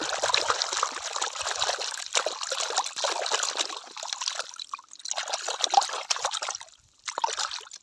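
Water trickling and splashing over plastic toy animals as they are washed, in three runs with short breaks about five and seven seconds in.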